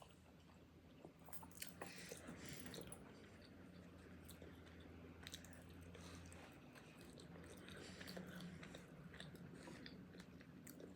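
A person chewing food close to the microphone: soft, irregular wet clicks and small crunches.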